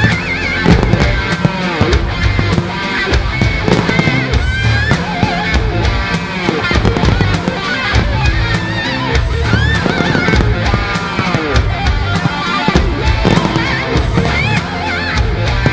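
Loud music from a pyromusical fireworks show, with a heavy low end and a wavering melody line. Frequent fireworks bursts and crackles crack through it.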